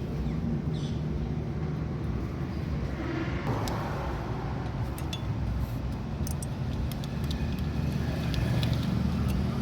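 A steady low mechanical hum, like a vehicle engine running, with scattered light clicks over it.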